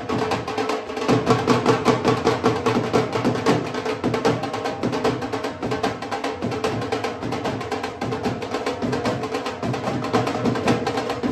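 A barrel hand drum beaten in a fast, steady dance rhythm, with music carrying a steady tone underneath.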